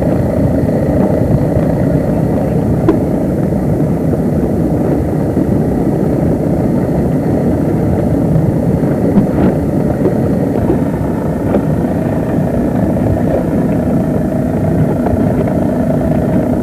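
A motorboat engine running steadily at low speed, with a dense, even rumble.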